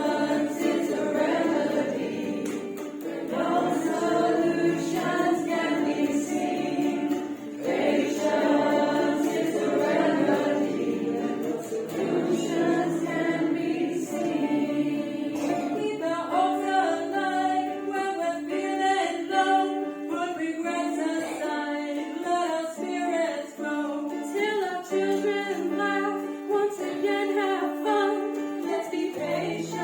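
A small group of women singing together in harmony.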